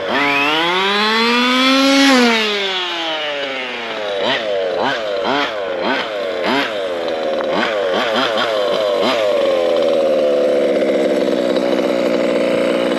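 ESP 30.5cc two-stroke RC race engine in a Losi 5ive-T 2.0 truck, being run in. It revs up over about two seconds and falls back, then blips in quick short bursts of throttle, about two a second, then runs steadier at a higher pitch near the end. These are the part-throttle bursts and roll-offs of a new engine's break-in.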